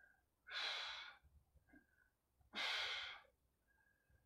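A man breathing hard with the effort of single-arm kettlebell rows: two forceful breaths, each a short rush of air under a second long, about two seconds apart in time with the reps.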